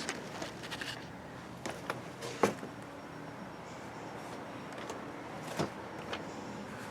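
A few short, sharp clicks and taps, spaced irregularly a second or more apart, over a low steady room hum.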